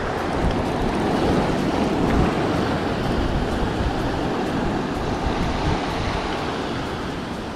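Ocean waves breaking and washing over a rock ledge, with wind rumbling on the microphone.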